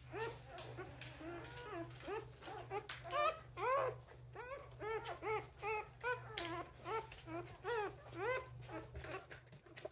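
Newborn Newfypoo puppy whimpering and squealing while being held and turned over, a quick series of short rising-and-falling cries, about three a second.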